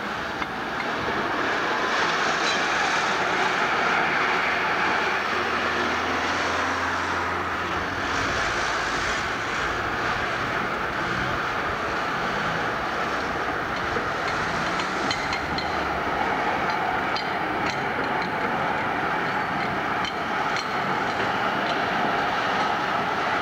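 Amsterdam street tram running along its street track amid city traffic, with a run of sharp clicks in the second half as it passes close.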